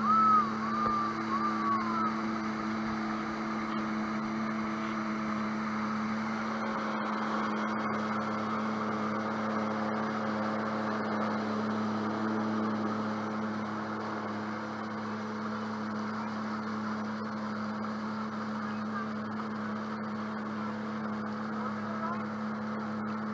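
Sea-Doo boat's engine running steadily at cruising speed, with water rushing and spraying along the hull.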